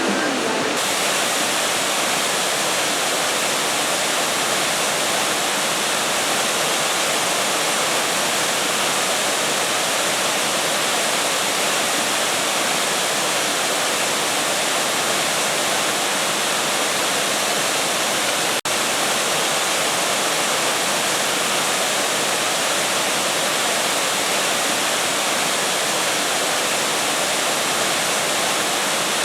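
Waimea Falls, a waterfall pouring into its pool, giving a steady, loud rush of falling water. It breaks off for a split second about eighteen seconds in.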